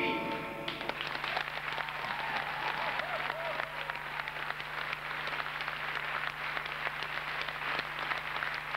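Theatre audience applauding at the end of a song; the singing and music stop about half a second in, and steady clapping follows, with a few voices calling out over it.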